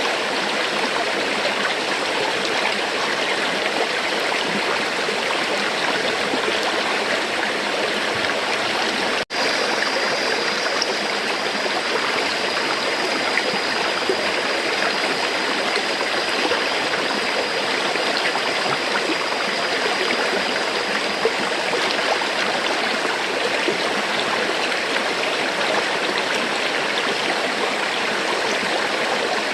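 River water flowing steadily, a dense even rushing with no let-up. The sound drops out for an instant about nine seconds in.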